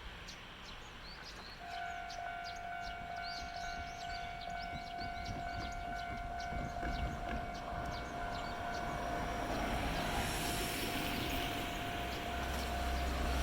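Japanese railway level-crossing warning bell starting about a second and a half in and ringing steadily as a single high tone. Train noise builds up toward the end as a train approaches the crossing.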